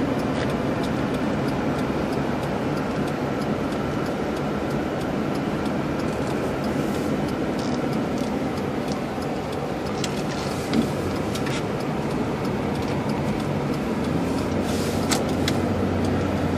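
Steady road and engine noise inside a moving car's cabin, tyres running on a snow-covered road, with a low engine hum growing stronger near the end and a few faint clicks.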